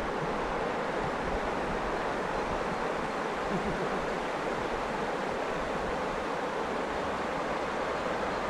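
Steady rush of river water spilling over a low weir and shallow rapid.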